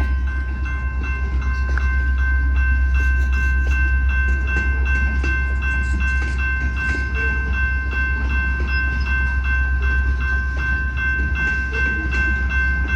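Freight train hauled by EMD SD70MAC diesel-electric locomotives, whose 16-cylinder two-stroke engines give a deep, steady rumble. Several steady high ringing tones sit over it, with rapid, evenly spaced clicks throughout.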